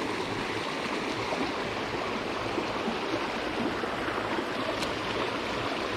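Small stream flowing steadily: an even, unbroken wash of running water.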